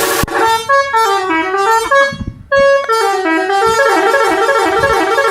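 Bus telolet horn, a multi-note musical horn, playing loud quick runs of tones that step down and back up in pitch, with a short break about two seconds in.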